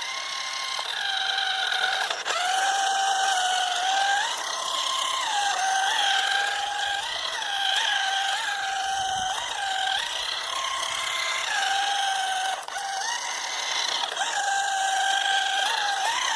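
A toy RC car's small electric motor and gears whining steadily, the pitch stepping up and dropping back again and again as the throttle is worked.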